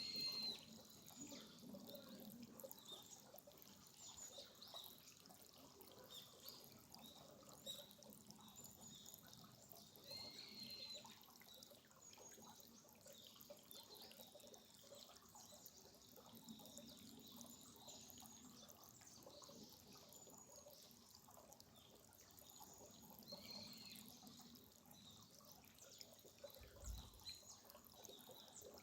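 Small stream trickling and dripping, faint and steady, with a few short bird calls now and then. There is a brief low bump near the end.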